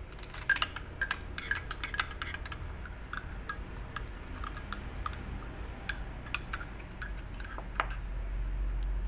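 Metal spoon stirring in a ceramic mug, clinking against its sides in quick runs of light taps that thin out after about three seconds.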